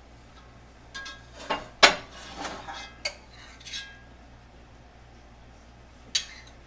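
Metal spoon scraping and clinking against the inside of an enameled cast-iron Dutch oven while scooping out cooked ground meat: a string of clinks and scrapes over about three seconds, the sharpest about two seconds in, and one more clink near the end.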